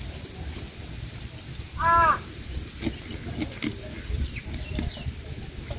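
A single bird call of about half a second, about two seconds in, the loudest sound. Around it come short scraping clicks as scales are scraped off a hilsa fish against the blade of a boti, a floor-mounted curved knife.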